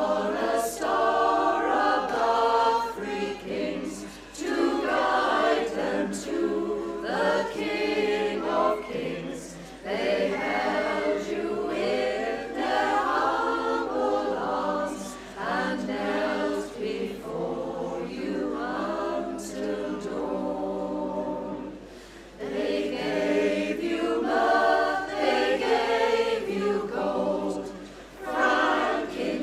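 Women's choir singing a cappella, without accompaniment, in phrases with brief breaks between them.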